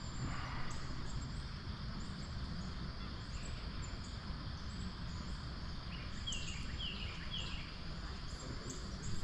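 Outdoor stream-side ambience: a steady low rush, with faint short high chirps repeating throughout. About six seconds in, a bird gives three short descending calls.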